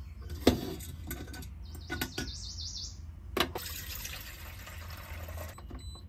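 Kettle set down on an induction hob with a knock, then a couple of clinks as its lid comes off, followed by water poured into the kettle for about two seconds. A bird chirps in the background partway through.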